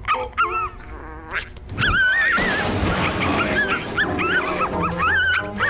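Cartoon puppy yipping and whimpering in a rapid string of short, high, curling calls, with a noisy crash about two seconds in, as from a knocked-over metal trash can.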